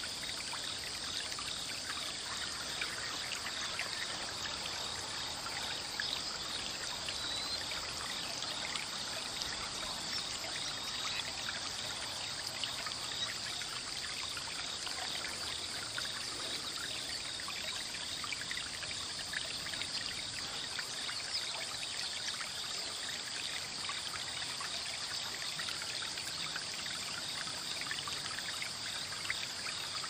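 Steady sound of running, trickling water like a small stream, an even crackling hiss that holds without a break; no coot calls stand out.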